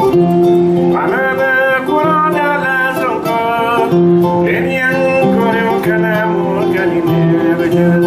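Background music: a song led by acoustic guitar.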